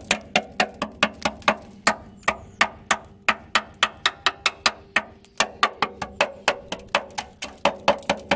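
Hammer tapping quickly and repeatedly on the rusty steel rear chassis rail of a Land Rover Discovery 2, about four to five sharp strikes a second with a short pause around five seconds in: a tap test for rot in the rail.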